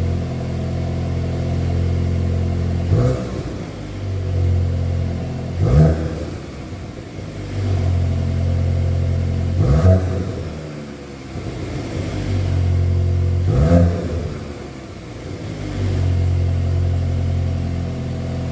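VW Golf 8 GTI's turbocharged 2.0-litre four-cylinder, on the stock exhaust, idling steadily. The throttle is blipped four times, about every four seconds, each rev rising sharply and falling back to idle within about a second.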